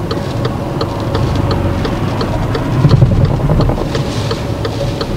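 A car's turn-signal indicator ticking steadily at about three ticks a second over the low rumble of the engine idling, with the rumble swelling briefly about three seconds in.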